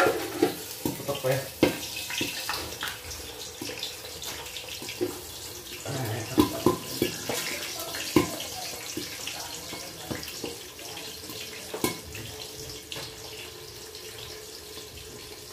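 Milkfish slices frying in hot oil in a covered pan: a steady sizzle, with scattered knocks and clinks as the aluminium lid is set on and the stovetop is handled.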